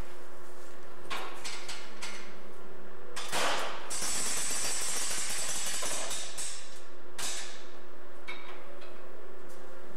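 Door pull-test rig working over a steady hum: a few clicks, then a sharp clunk a little over three seconds in followed by a few seconds of hissing, and another sharp knock near seven seconds.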